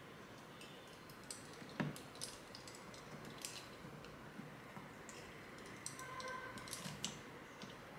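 Faint scattered clicks from a hand crimping tool and an RJ45 plug being handled while a network cable is crimped, with one sharper click about two seconds in.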